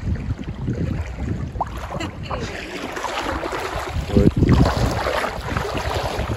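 Wind buffeting the microphone over moving water, with splashing that gets louder a few seconds in.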